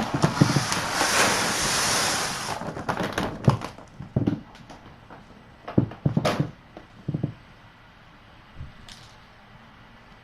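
A rustling hiss for about the first two and a half seconds, then a handful of scattered knocks and thuds as things are handled and set down.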